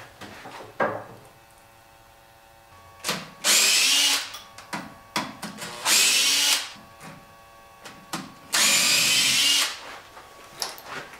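Cordless drill spinning a disc against a green elm bowl turning on the lathe, run in three bursts of about a second each, each starting with a rising whine. A steady hum from the running lathe lies underneath, with a few short knocks between the bursts.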